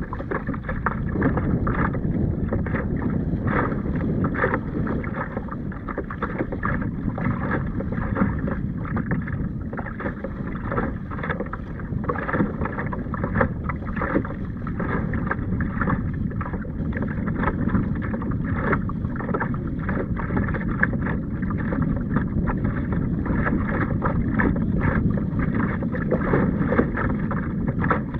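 Choppy sea water splashing and slapping against the hull of a Hobie CompassDuo tandem kayak under way, with wind buffeting the microphone. There are frequent short splashes over a continuous low rush of wind and water.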